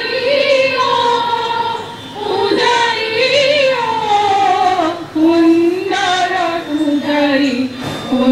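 A woman singing a melody, holding long notes that slide up and down, with short breaks between phrases.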